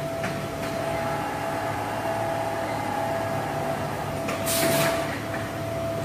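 TOPEAGLE TBH-580 direct-drive eyelet buttonhole machine running with a steady hum and whine. About four and a half seconds in, a loud hiss lasts about half a second.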